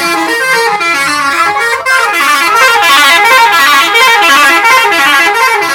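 Indonesian bus 'telolet' musical air horn playing a quick tune of stepped notes that climb and fall. From about two seconds in, the runs of notes grow denser and louder, and the horn cuts off near the end.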